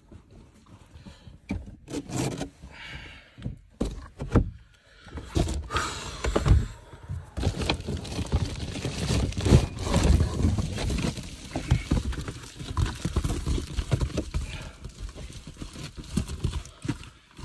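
Uneven rustling, scraping and thumps as a person wrapped in a heavy blanket shifts about in a van's front seat, with fabric rubbing close to the microphone. The sound grows denser and louder about five seconds in.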